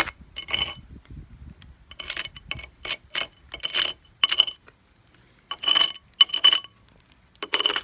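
Broken pieces of crumbling old concrete step clinking and knocking as they are handled or broken loose: about a dozen short, sharp clinks in irregular clusters with short pauses between.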